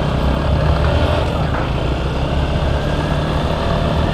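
Motorcycle engine running steadily while the bike is ridden down a street, heard from the rider's own machine.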